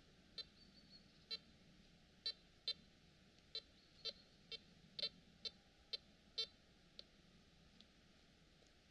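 Makro CF77 metal detector sounding about a dozen short beeps, irregularly spaced, as its search coil is swept over the ground; the beeps stop about seven seconds in.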